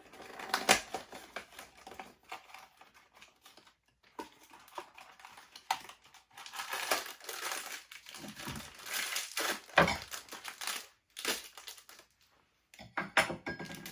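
Funko Mystery Minis blind-box packaging being opened by hand: cardboard and plastic wrapper crinkling and rustling in irregular bursts with short pauses.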